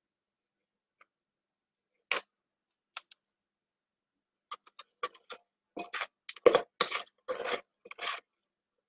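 Wooden spoon scraping and knocking against a stainless steel mixing bowl as thick cake batter is scraped out into a lined tin. A couple of single clicks come first, then a quick run of scrapes and knocks in the last few seconds.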